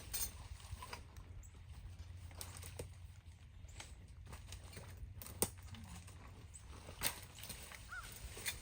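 A few separate sharp knocks and clacks of rock and debris being pulled aside at a clogged culvert, over a low steady rumble.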